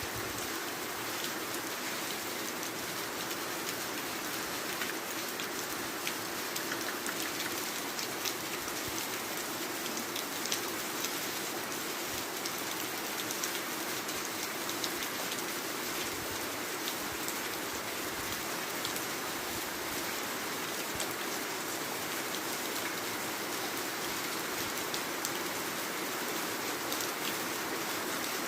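Heavy rain falling steadily, an even hiss with many scattered individual drops tapping.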